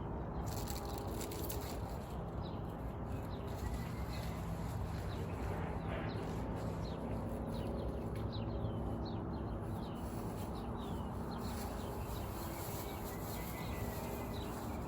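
Small birds chirping faintly in short, falling chirps scattered throughout, over a steady low background hum.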